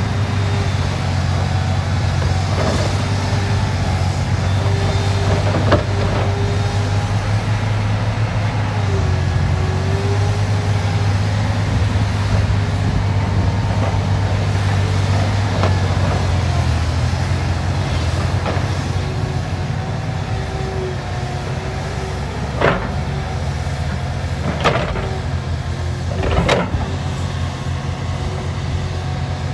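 Liebherr 964 crawler excavator's diesel engine running steadily under load, with a hydraulic whine that rises and falls as the boom, bucket and swing move. Three sharp knocks come near the end.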